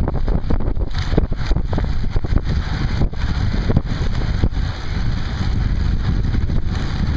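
Wind rushing over the microphone of a camera riding on a moving recumbent bicycle, a steady deep rumble. Many short knocks and rattles from the ride are scattered through it.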